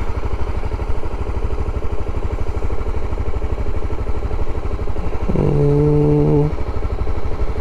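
Motorcycle engine idling with a steady, even pulse while the bike stands still. About five seconds in, a steady tone is held for about a second over the idle.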